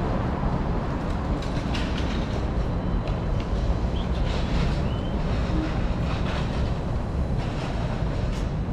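Downtown street ambience: a steady low rumble of traffic, with an electric trolleybus in the intersection. Light clicks run through it, and a short high squeak comes a little after four seconds in.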